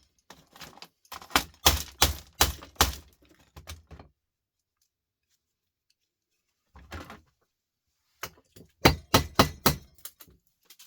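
Hammer blows cracking open a small plastic electrical fitting to get at the brass parts inside: quick runs of sharp strikes, a pause in the middle, then another run of blows.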